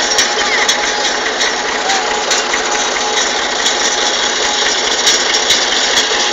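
Tractor engine running steadily while its hydraulic front loader lifts a bucket of manure, with small clicks and rattles from the loader.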